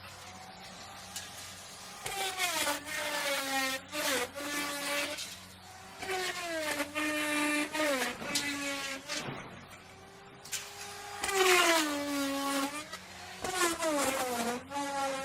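Electric wood router cutting wood in several passes of a few seconds each. The motor's whine dips in pitch as the bit bites into the wood and climbs back as it comes free. In the pauses it spins freely with a quieter, steady whine.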